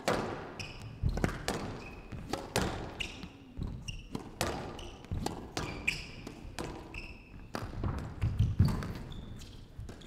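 Squash rally: the ball cracks off rackets and the court walls again and again, with brief high squeaks of shoes on the court floor between the hits.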